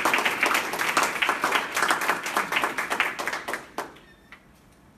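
Audience applauding, many hands clapping, thinning out and dying away about four seconds in with a last few single claps.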